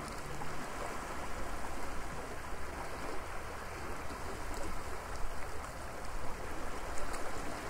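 Steady rushing water noise, an even wash with no tone in it, with a few faint clicks about seven seconds in.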